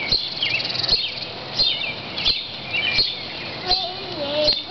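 Birds chirping, short high calls repeating every half second or so, over a steady hiss of falling rain. A young child's voice starts up near the end.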